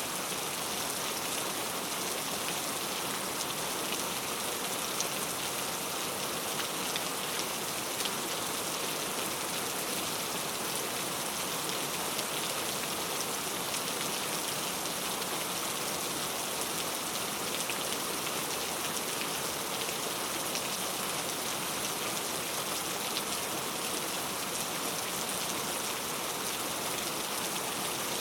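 Steady rainfall with fine, dense drop patter, an even hiss.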